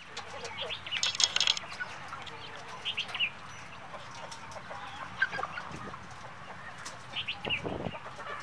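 Black Australorp hens clucking with short squawks, the loudest burst about a second in.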